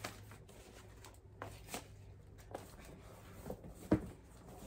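A new yoga mat being handled and unrolled: scattered soft rustles and taps, with one sharper knock about four seconds in.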